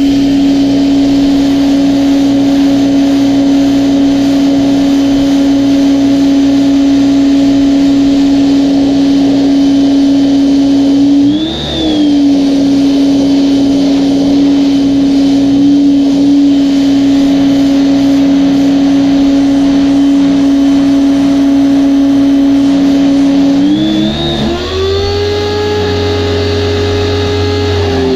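Ivation 2200 PSI electric pressure washer running and spraying, its motor and pump giving a loud, steady hum. About halfway through the pitch briefly rises and drops back, and near the end it climbs and holds higher.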